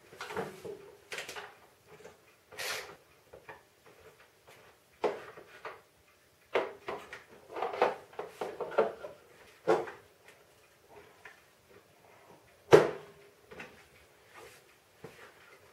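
Hand wrenches working the bolt that holds a Craftsman snow thrower's discharge chute: irregular clicks, clanks and rattles of metal tools against the machine's plastic and metal parts. One sharp knock, the loudest sound, comes near the end.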